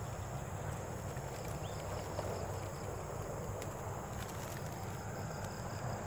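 Steady high-pitched chorus of insects, with a low steady rumble underneath.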